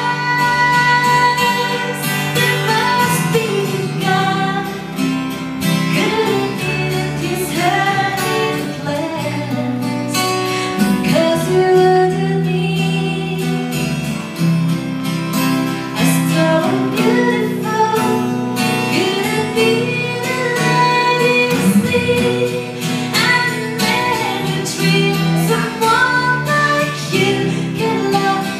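A small band playing live: a woman singing the melody over strummed acoustic guitars and electric guitar.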